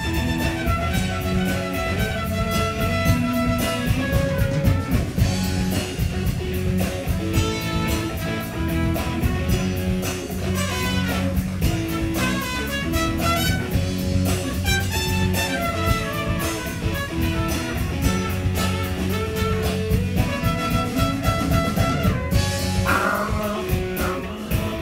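Live funky soul-pop band playing: trumpet lines over electric bass, guitar and drum kit with a steady beat.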